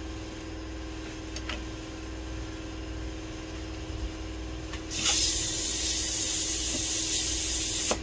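Compressed air hissing loudly into a lawn tractor's rear tire from about five seconds in, cutting off suddenly three seconds later: a burst of air to blow the bead onto the rim, with the bead not yet seated. A steady machine hum runs underneath.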